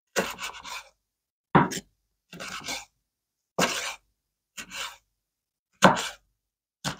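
Kitchen knife slicing a red sweet pepper into strips on a wooden cutting board: about seven separate cuts roughly a second apart, each a short sharp crunch with a brief scrape of the blade.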